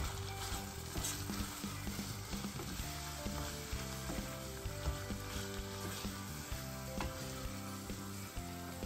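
Food sizzling and crackling as it fries in oil in a pan, with the clicks of stirring, over soft background music.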